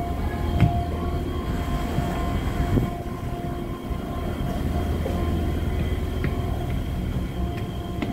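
Steady low drone of the tour boat's engines and machinery, with a thin steady whine above it. A couple of dull knocks stand out, about half a second in and near three seconds in.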